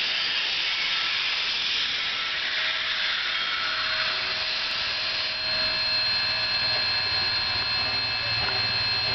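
Steam locomotive blowing steam from its cylinder cocks with a loud, even hiss that fades about five seconds in. After that a steady high whine and a low hum remain.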